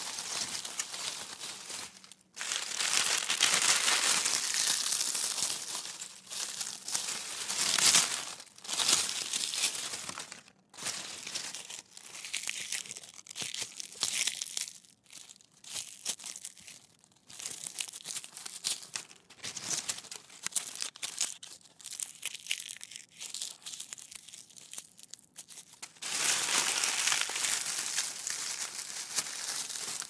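Dry leaves crushed and crumpled in the hands: continuous crisp crackling and crunching with a few brief pauses. The crunching is dense and loud in the first third and again near the end, sparser in the middle.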